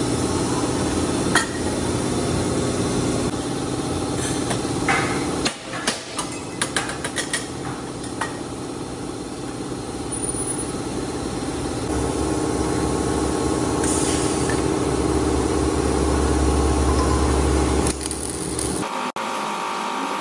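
Steel muffler tubes clanking and knocking as they are handled and worked at a shop machine, over a steady machine hum. The knocks come in a quick run in the first half; the second half is a steadier mechanical noise.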